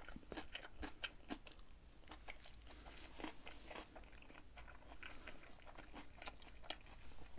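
A person chewing a mouthful of kimchi with the mouth closed: soft, irregular crunches and small clicks, quietly.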